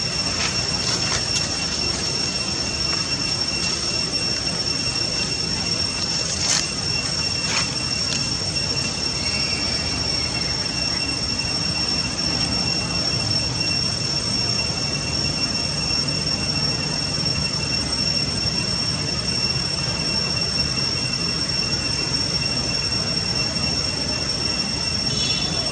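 Insects droning with a steady high-pitched whine over a constant hiss, with a few short clicks about a second in and around six to seven seconds in.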